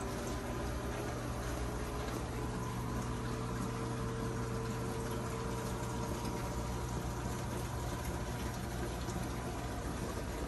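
Reef aquarium equipment running: a steady pump hum under the constant gurgle and rush of circulating water.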